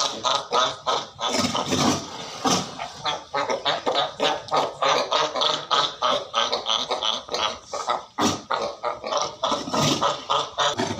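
Cape fur seals barking at each other in a fight: a fast, almost unbroken run of harsh calls, loudest near the start and again near the end.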